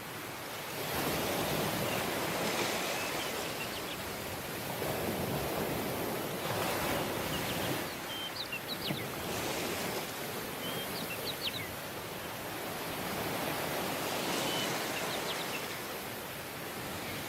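Waves washing onto a tropical beach, swelling and easing in long surges. A small bird chirps now and then in the middle and later part.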